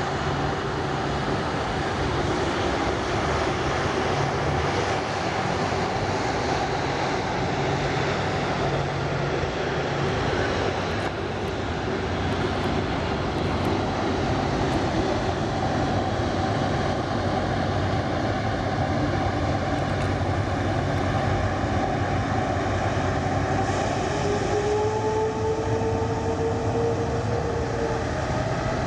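Twin Williams FJ44 turbofans of a Cessna CitationJet CJ2+ on final approach to landing: a steady jet rush, with a thin whine that rises slightly in pitch over the last few seconds as the jet nears touchdown.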